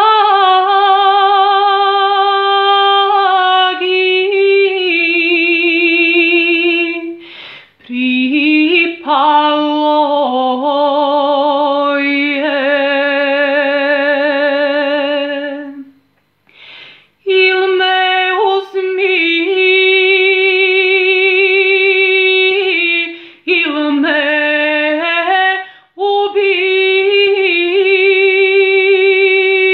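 A woman singing a sevdalinka unaccompanied, in long held notes with vibrato and ornamented turns, broken by short pauses for breath.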